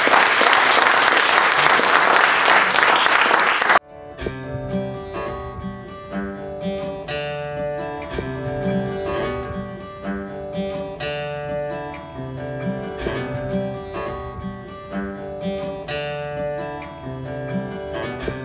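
Audience applauding for about four seconds, cut off abruptly, then acoustic guitar music with plucked, ringing notes.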